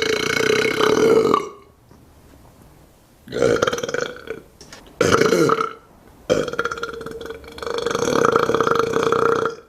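A person belching repeatedly: a burp trailing off about a second in, then two short burps and a long drawn-out one of about three seconds, each held at a steady pitch.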